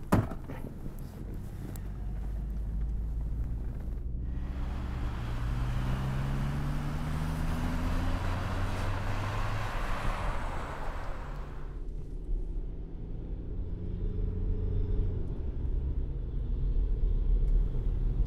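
Car engine accelerating, its pitch rising over several seconds, with a rush of tyre and road noise as the taxi drives past; the rush cuts off suddenly about twelve seconds in, leaving a steady low engine drone heard from inside the cab.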